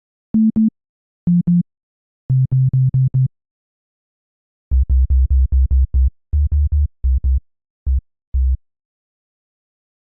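Short, clipped synthesizer bass notes separated by silence, playing a dubstep-style pattern that steps down in pitch: two higher notes, two slightly lower, five lower still, then a quick run of about a dozen deep bass notes in the second half.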